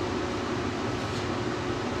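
Steady whirring hum of a fan running, with a faint steady tone in it.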